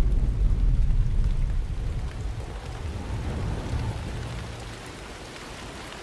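Deep rumble of thunder fading away over the first four seconds, giving way to the steady hiss of rain.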